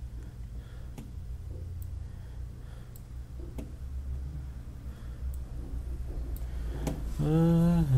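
Scattered faint clicks of a computer mouse over a steady low hum, with a brief vocal sound from a man near the end.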